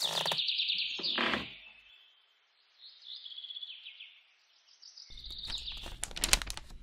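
Bird chirping and trilling in quick high bouts, loudest in the first two seconds, with short pauses between bouts. A run of clicks and a low hum joins the chirps near the end.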